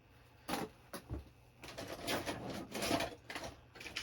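Rummaging: objects being shifted and handled, with a couple of sharp knocks early on and then a stretch of rustling and scraping.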